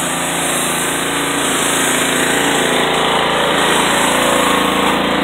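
Pressure washer running steadily, its motor and pump droning under the hiss of the high-pressure spray hitting a car.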